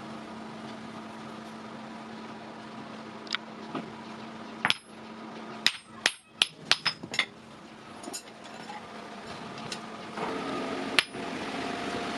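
Hammer blows on steel in a blacksmith's shop, about ten sharp ringing strikes with a quick run of six in about a second and a half midway. A steady machine hum runs underneath and grows into a louder rushing noise near the end.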